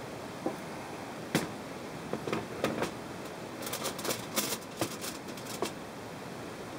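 A foil-covered glass bowl being set onto a refrigerator's glass shelf: scattered light knocks and clinks, with a dense run of foil crinkling about four seconds in, over a steady hiss.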